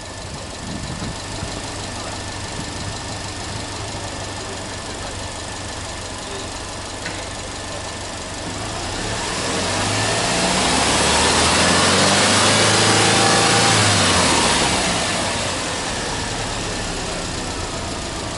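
Subaru Impreza WRX STI hatchback's turbocharged flat-four idling, then revved in neutral. About nine seconds in, the engine speed climbs smoothly and gets louder, holds for a few seconds, and falls back to a steady idle.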